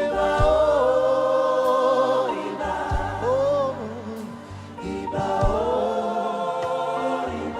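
Gospel choir singing long held, wordless notes that glide between pitches, over instrumental accompaniment with a steady low bass.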